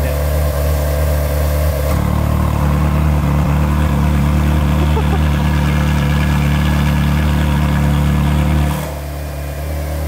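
Ferrari 458 Spider's 4.5-litre naturally aspirated V8 idling steadily. It gets louder about two seconds in and drops back down near the end.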